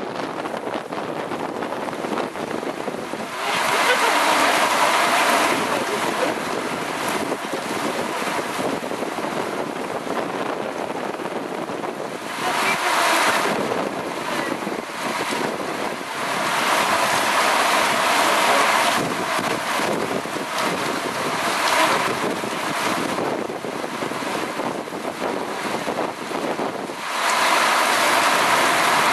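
Heavy rain pouring down in a thunderstorm while squall wind gusts through the trees and buffets the microphone, a continuous rushing noise that swells louder in several gusts.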